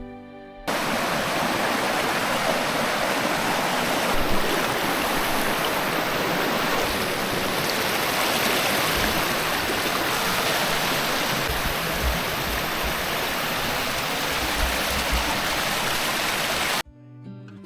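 Steady, even rush of running water from a rainforest creek and its falls. It cuts in abruptly about a second in and stops just as abruptly near the end, with guitar music on either side.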